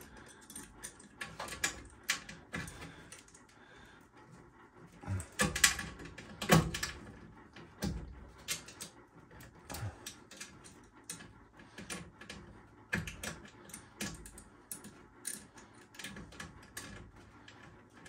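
Scattered small clicks, taps and scrapes of metal being handled inside a furnace cabinet as a replacement transformer's mounting screw is started by hand. The loudest knocks come about five and a half and six and a half seconds in.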